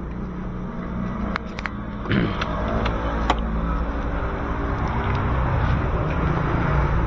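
A car engine idling steadily, with a few sharp clicks about a second and a half and three seconds in.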